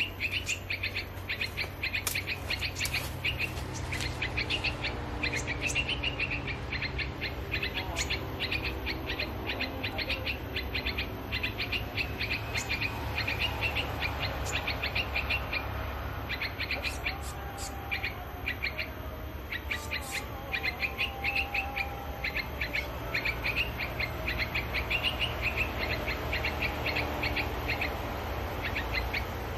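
Small songbirds chirping in long, rapid series of short, sharp notes, with a lower wavering call partway through, over a steady low rumble of road traffic.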